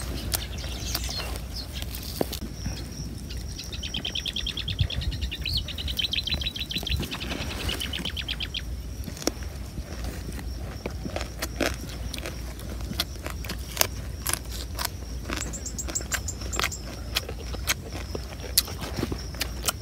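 A bird trills rapidly for about six seconds, starting a couple of seconds in, with a shorter chirp later. Behind it runs a faint steady high whine, and scattered sharp clicks and smacks come from people eating with their fingers.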